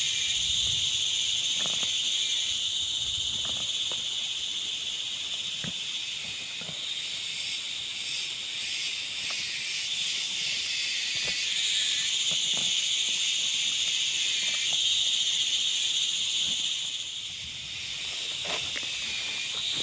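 Steady high-pitched chorus of forest insects buzzing, with a few soft scattered knocks and rustles.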